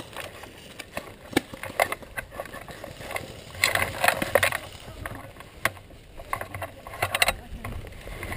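Irregular knocks, clicks and rattles of an airsoft M249 and its sling as it is carried, with footsteps on the woodland floor, heard through a camera mounted on the gun. Distant voices come in briefly about four seconds in.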